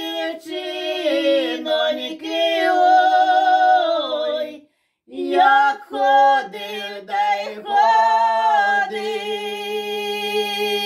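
Two women singing a Ukrainian folk song unaccompanied, in two-part harmony. There is a short break for breath about halfway through, and the song ends on a long held note in both voices.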